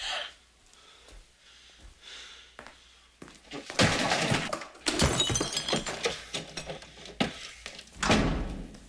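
A run of off-screen crashes and thuds, with something breaking, in a small room: quiet at first, then a loud clatter from about four seconds in for several seconds, and one last heavy bang near the end.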